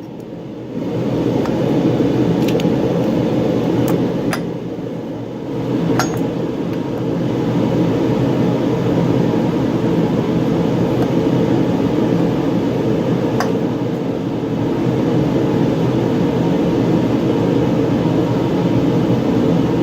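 Steady blowing rush of a space heater running, starting under a second in, with a few light metallic clinks of parts being handled.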